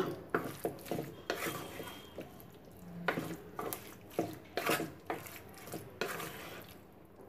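Wooden spoon stirring a wet, chunky mix of cut lemons and chilli powder in a clay pot, with irregular scrapes and light knocks against the pot's side.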